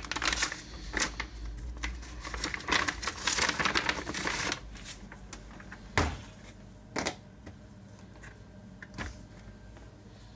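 A dishwasher detergent tablet being handled and loaded: crinkly rustling and rattling for about four seconds, then a sharp click as the detergent dispenser is snapped shut, followed by a few lighter clicks.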